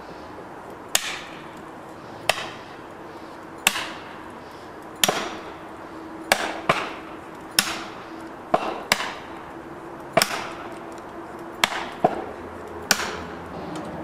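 A hammer driving felling wedges into the back cut of a large tree: about a dozen sharp strikes, roughly one a second at uneven spacing.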